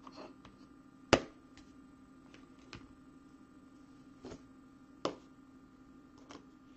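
Scattered clicks and taps of trading cards in hard plastic holders being handled and set down on a table; one sharp click about a second in, then a few lighter ones. A steady low electrical hum runs underneath.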